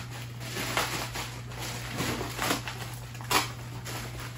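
A white plastic bag rustling and crinkling as a shoebox is worked out of it, with a sharp crinkle about three seconds in.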